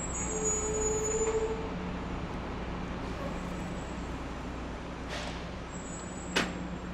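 City street traffic ambience: a steady hum of passing vehicles, with a short held tone in the first second and a half and a single sharp knock near the end.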